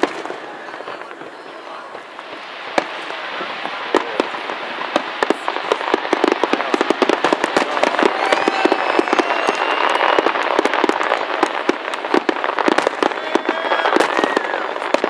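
Fireworks display: many sharp bangs and crackles of bursting aerial shells, coming thicker and louder from about four seconds in.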